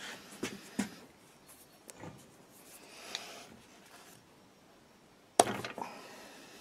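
A small metal hand tool clicking and scraping against the cast housing of a Simms diesel injector pump as the worn, hardened throttle-shaft seal is picked at. A few light clicks come in the first few seconds, then one much louder sharp knock with a short ring about five seconds in.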